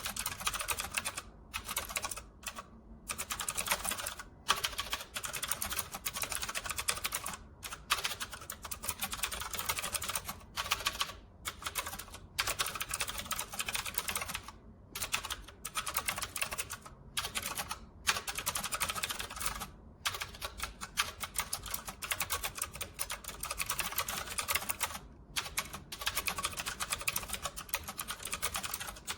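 Rapid typing on a typewriter-style mechanical keyboard: a dense run of key clicks with brief pauses between bursts.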